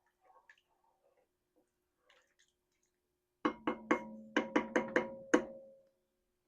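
A spoon rapped about eight times in quick succession on the rim of a soup pot, knocking food off; each knock sets the pot ringing. Before that, faint scraping from stirring.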